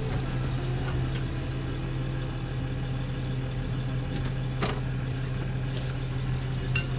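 Kubota BX2680 compact tractor's three-cylinder diesel engine idling steadily, with a couple of short clicks about four and a half seconds in and near the end.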